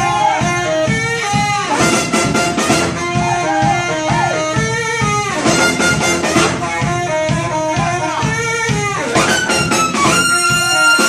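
Live brass band playing an upbeat tune: saxophone, trombone, trumpet and sousaphone over a steady drum-kit beat. About ten seconds in, the horns rise into a long held note.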